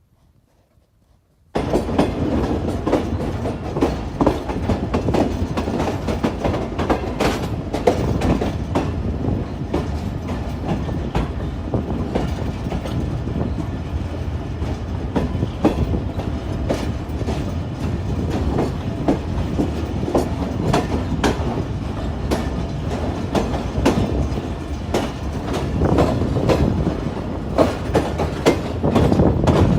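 Train wheels running over the track, a steady rumble with irregular clattering clicks and knocks from rail joints and points; it starts suddenly about a second and a half in.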